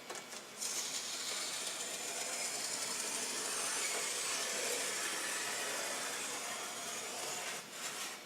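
Razor knife drawn lengthwise along a strip of aluminum foil duct tape, slitting it in half: a steady scratchy hiss that starts about half a second in and stops near the end.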